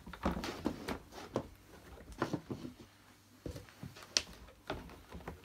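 A cloth rubbing and wiping over the plastic casing of an Electrolux 502 vacuum, buffing off polish residue. The strokes are irregular, with a few light knocks and ticks as the cloth and hand move over the body.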